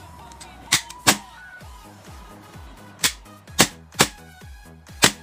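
Six sharp metal clicks and clacks from a WE F226 gas blowback airsoft pistol's slide and action being worked by hand, in two pairs and then a quicker run of four. Background music plays under them.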